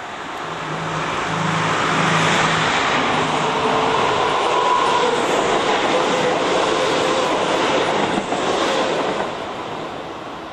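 Keisei 3300-series electric commuter train passing close by. Its running noise builds over the first couple of seconds, holds as a steady rumble of wheels on the rails with a low hum, and fades near the end. A single knock comes about eight seconds in.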